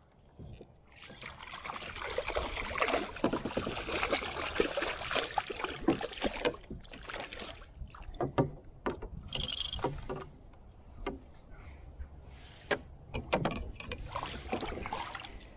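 Water splashing and sloshing as a fish shot with a bowfishing arrow thrashes at the surface while it is hauled in on the line. Sharp clicks and knocks of gear against the plastic kayak run through it, and there is another burst of splashing near the end as the fish reaches the kayak's side.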